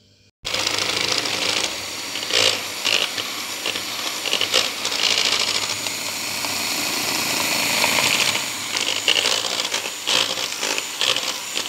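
A Bosch electric hand mixer starts about half a second in and runs steadily, its beaters whipping egg whites and sugar into meringue in a plastic jug. Scattered clicks and knocks sound over the motor.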